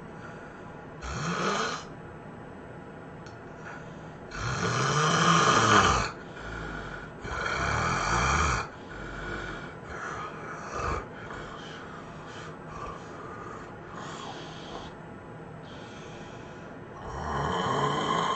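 A person snoring heavily in separate long, loud snores, each rising and falling in pitch, with the loudest about four to six seconds in and another long one near the end; softer snorts and breaths lie between them.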